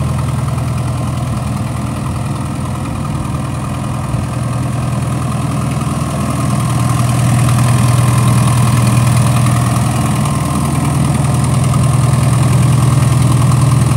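New Holland TS6030 tractor's diesel engine idling steadily while the tractor stands, running smoothly and sounding good. It grows a little louder about seven seconds in.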